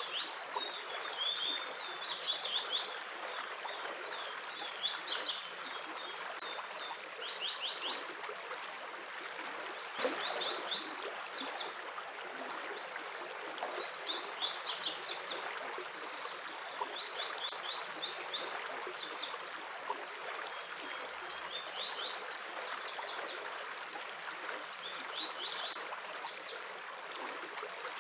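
Water running steadily, like a stream, with songbirds calling over it: short quick runs of high chirps recur every couple of seconds.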